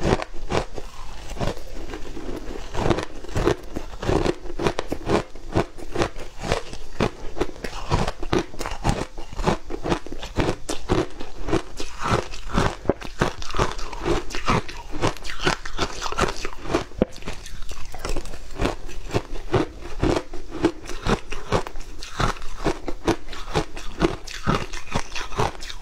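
A person chewing and crunching mouthfuls of frozen shaved ice, close to the microphone: a dense stream of sharp, crackling crunches.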